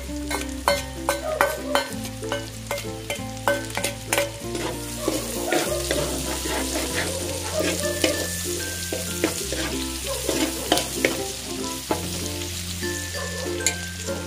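Garlic and onion sizzling as they sauté in hot oil in a pan, with a spatula clicking and scraping against the pan as it stirs them. Background music with a slow bass line plays underneath.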